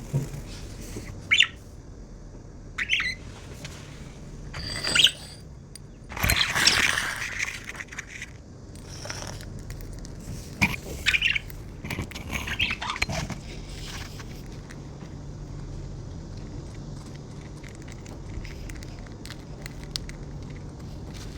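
Budgerigars feeding, with scattered short chirps and squawks and scraping sounds, busiest in the first half and quieter after that.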